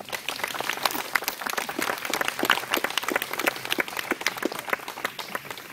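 Audience applauding with hand claps. The clapping starts suddenly, is densest about two to three seconds in, and thins out near the end.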